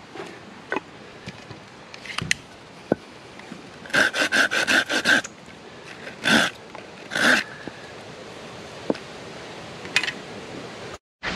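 Folding hand saw cutting green wood: a quick run of about seven short rasping strokes, then two slower, longer strokes about a second apart.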